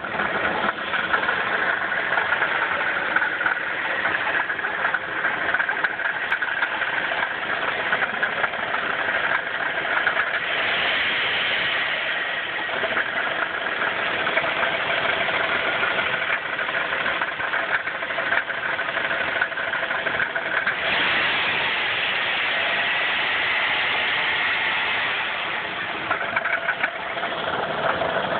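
A 1994 Chrysler 3.3 L V6 running with a steady, rapid knock. The uploader thinks the knock sounds like at least one bad connecting-rod bearing, at about 77,000 miles.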